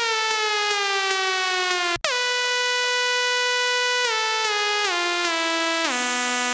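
Synthesizer lead holding long notes that glide from one pitch into the next through pitch automation. It swoops up, drifts slowly down, breaks off briefly about two seconds in, then slides down through a series of lower notes.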